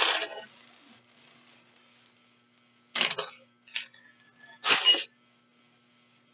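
A cardboard box and its packaging being handled: three short bursts of rustling and scraping, with a few light clicks between them. Under them runs a faint steady hum from a ceiling fan.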